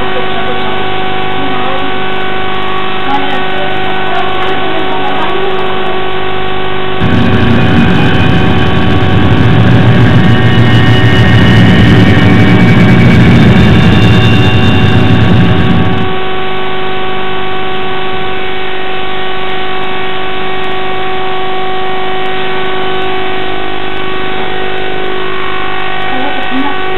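A steady droning tone with overtones from the horror film's soundtrack. A loud low rumbling noise swells in about seven seconds in and stops about sixteen seconds in.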